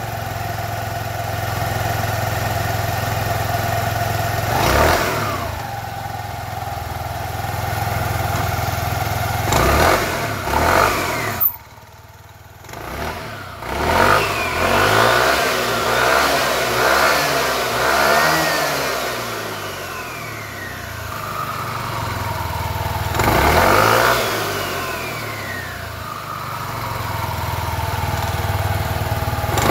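SYM Joymax 125 scooter's single-cylinder four-stroke engine running with the CVT cover off. The throttle is blipped several times, so the engine revs up and falls back and the exposed drive belt, pulleys and clutch bell spin up. About eleven seconds in, the engine briefly drops almost away before picking up again.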